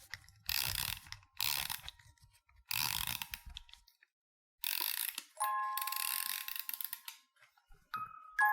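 A ratcheting mechanism clicking in four bursts, like something being wound or cranked. Near the end a few chiming, bell-like notes begin.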